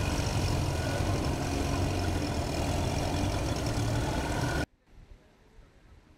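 An engine running steadily with a low rumble, cut off abruptly by an edit about two-thirds of the way through, after which only faint background remains.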